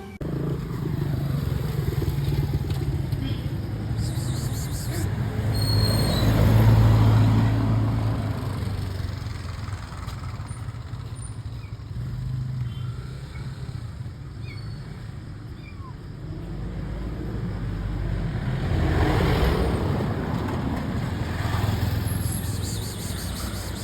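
Road traffic: motor vehicle engines running steadily, swelling louder twice as vehicles pass, about a quarter of the way in and again past the three-quarter mark.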